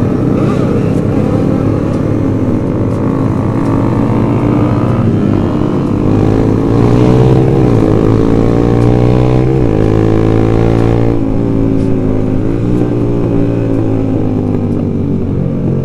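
Motorcycle engine running while riding, heard from the rider's seat, its pitch rising and falling as the throttle is opened and eased, loudest about seven seconds in.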